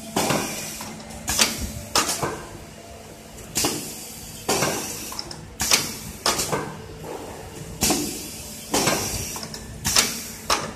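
Automatic shrink-wrap machine cycling: sharp clacks with short bursts of hissing air from its pneumatic pusher and sealing mechanism, about once a second and sometimes in quick pairs, over a steady machine hum.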